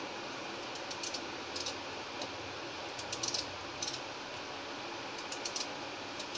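Knife cutting through a raw peeled potato held in the hand: small crisp clicks in scattered clusters as each slice comes off, over a steady background hiss.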